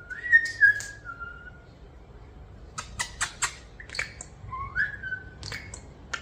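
European starlings calling: a long whistle that steps down in pitch, then a run of short, sharp clicks and chirps, and later a shorter whistle that rises.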